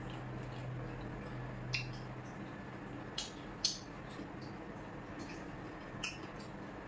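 Close-up eating sounds: a few sharp, crisp crunches at irregular intervals as a person bites and chews slices of raw fruit, over a low hum that fades out about two seconds in.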